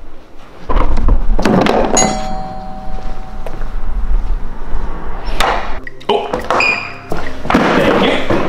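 Background music with a few sharp thuds.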